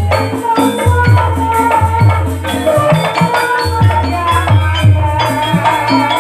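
Javanese gambang suling ensemble playing: a held melody line over short pitched notes, a steady low drum beat and rattling percussion.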